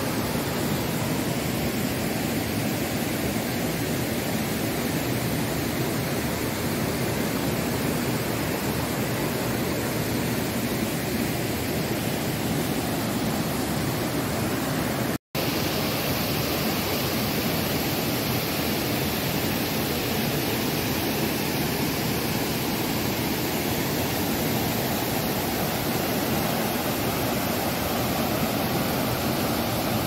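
Steady rush of a waterfall and river water, with a momentary break to silence about halfway through.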